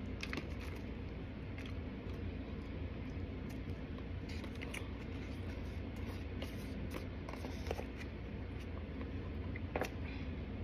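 Plastic spoon scraping and tapping inside a clear plastic clamshell container, with soft chewing: scattered small clicks and scrapes over a steady low hum.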